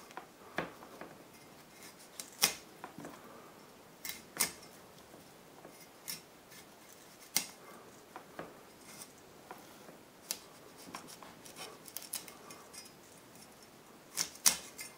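Kitchen knife cutting florets off a broccoli crown: irregular crisp snaps as the blade goes through the firm stalks, about a dozen cuts with a quick pair near the end.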